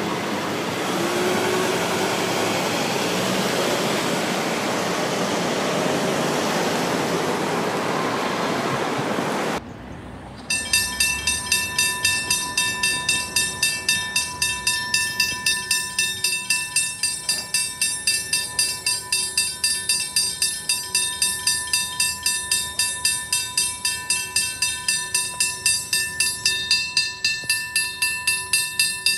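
Vehicles rushing past a railway level crossing as the boom gate rises. After a cut about ten seconds in, the crossing's warning bell on the signal mast rings rapidly in fast, evenly spaced strikes, each with a bright metallic ring.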